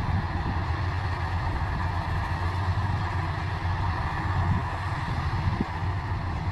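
Bimo 102 Maxxi combine harvester running steadily, its engine giving a low, even hum.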